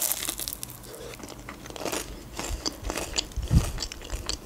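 Crunching bites and chewing of a crisp fried McDonald's pie crust: many short crackles.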